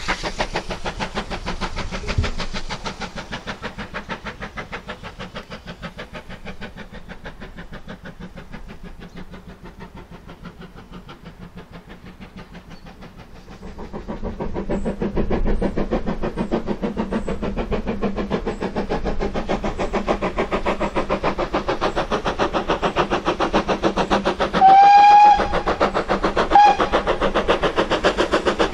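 GWR 4500-class small prairie tank locomotive 4555 working under steam, its exhaust beats in a fast, even rhythm: faint as it draws away in the first half, then louder as the train approaches. About 25 s in the steam whistle sounds, one blast of just under a second followed shortly by a short toot.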